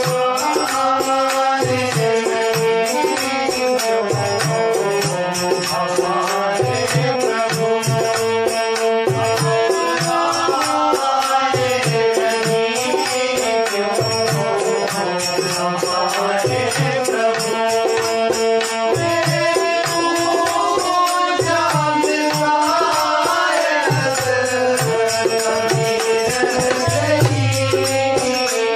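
Instrumental interlude of a Hindi devotional song (bhajan): sustained melody notes over a steady percussion beat.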